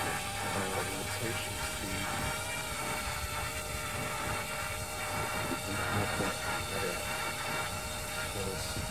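Parrot Bebop 2 quadcopter in flight, its four brushless motors and propellers giving a steady whine of several held tones, with wind rumbling on the microphone.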